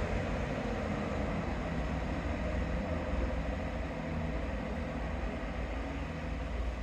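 Passenger train at the station platform, its engine running with a steady low hum over an even background noise.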